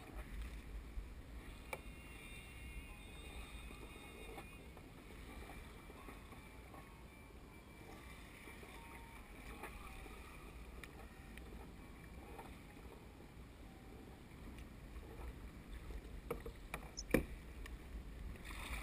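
Faint water lapping against a kayak's hull at sea, over a steady low wind rumble on the microphone, with a couple of sharp knocks near the end.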